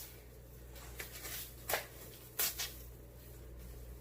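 A few short clicks and rustles of packaging and parts being handled, over a low steady hum.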